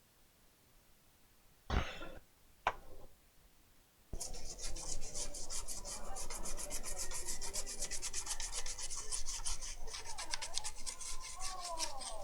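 Two short sharp sounds, then from about four seconds in a fast, steady back-and-forth scrubbing on a laptop motherboard as a chip on it is cleaned.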